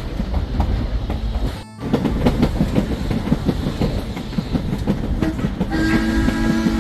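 Loud rumbling with a dense, fast clatter of rattles and knocks, like a vehicle moving over rough ground. It breaks off briefly about one and a half seconds in, and a steady two-note tone joins near the end.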